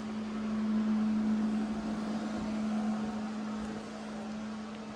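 A steady machine hum under a rushing noise that swells and then slowly fades away.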